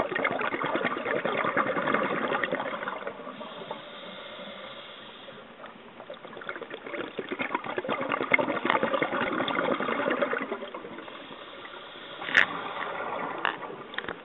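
Scuba diver breathing underwater through a regulator: two long bouts of exhaled bubbles, one at the start and one beginning about six and a half seconds in, with quieter hissing between them. A sharp click comes near the end.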